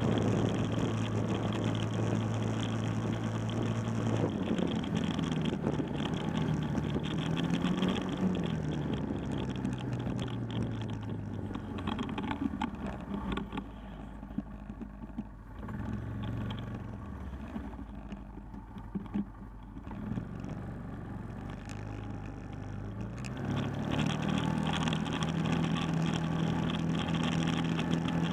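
Four-wheeler (ATV) engine running under way, a steady hum. About four seconds in it eases off and wavers. It runs slower and quieter through the middle, then picks up again near the end and holds steady.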